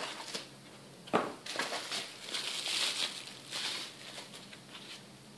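Plastic and foam packing material rustling and crinkling as it is handled and pulled out of the laptop box, in irregular bursts, with one sharp knock about a second in.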